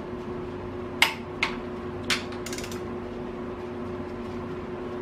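A click-type torque wrench gives a few sharp metal clicks, about a second in and again about two seconds in, as rocker-shaft bolts are pulled to their final 45 ft-lb torque. A shop fan hums steadily underneath.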